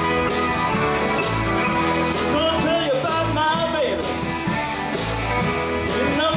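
Live rock band playing: electric guitars, bass, drums and keyboard over a steady beat, with a bending melodic line, a voice or lead guitar, coming in a little over two seconds in.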